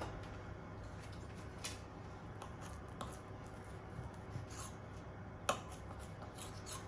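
Kitchen knife cutting a round of pizza dough in two: a few faint clicks and scrapes of the blade against the countertop as it presses through, the sharpest about five and a half seconds in.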